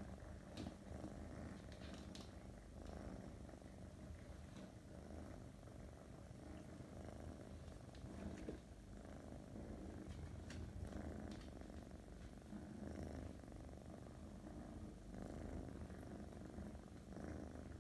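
Russian Blue cat purring, a low, steady rumble that swells and eases every couple of seconds.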